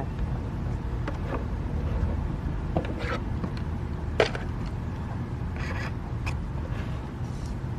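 Handling noise from the RC bait boat and its charger: a few scattered sharp clicks and two short scrapes, the loudest click about four seconds in, over a steady low hum.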